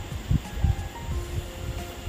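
Background music: a slow melody of held notes stepping from pitch to pitch, over irregular low thumps and rumble.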